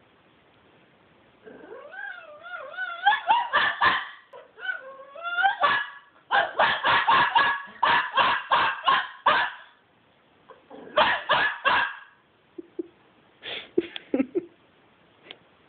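Shih tzu puppy crying: wavering, rising-and-falling whines, then yipping in quick runs of short high barks, about ten in a row in the middle and a few more near the end.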